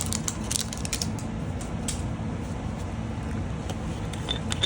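Light clicks and taps of small containers being handled, several in the first second and a few near the end, over a steady low background rumble.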